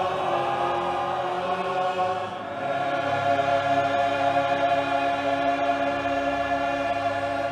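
A choir singing slow, sustained chords, moving to a new long-held chord about two and a half seconds in.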